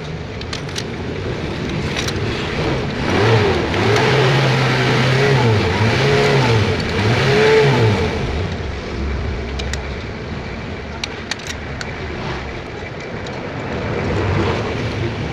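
A vehicle engine nearby revving up and down several times, with a few sharp clicks from tools.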